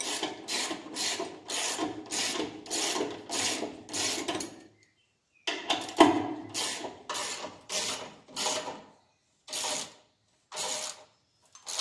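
Hand ratchet wrench tightening a bolt, the pawl clicking on each stroke. The strokes come about two a second, stop briefly about five seconds in, then resume more slowly.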